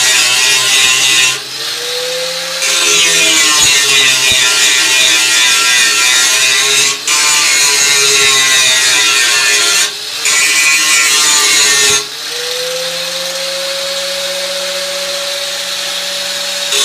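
Angle grinder running against steel, a loud whine over a hiss. It cuts out briefly several times and each time climbs back up in pitch as the disc spins up again.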